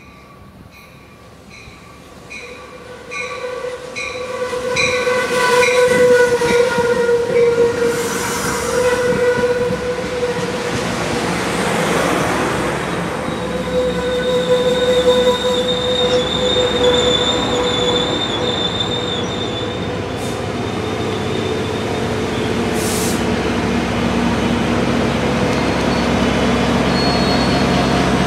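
Amtrak passenger train arriving at a station platform: a bell rings in even strokes as it approaches, then the horn sounds and the cars pass with a rising rumble of wheels on rail. High brake squeal follows as the train slows, and near the end the diesel locomotive pushing at the rear passes, its engine running.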